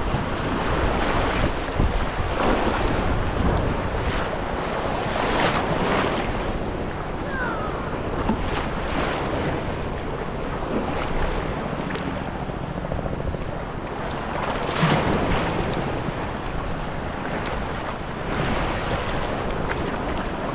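Ocean waves washing in on the shore, with wind buffeting the microphone.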